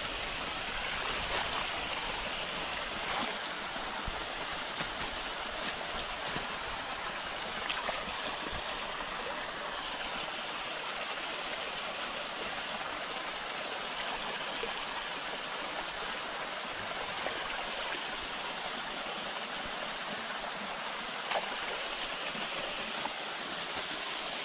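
Steady rushing and splashing of a small spring-fed stream and its little waterfall pouring over rocks into a shallow pool.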